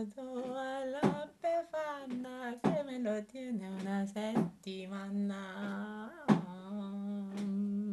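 A single voice humming a slow tune of long held low notes, stepping from one pitch to the next every second or so, broken by a few sharp clicks.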